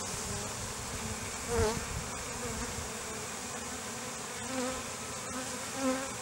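Honey bees from an opened hive humming steadily, with single bees buzzing close past three times: about a second and a half in, and twice near the end.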